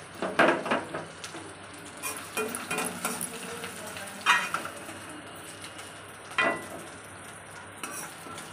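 Metal spoon scraping and knocking against a kadhai as fried fish fat with onion is scooped out into a bowl, with about five sharp knocks over a soft, steady sizzle of oil.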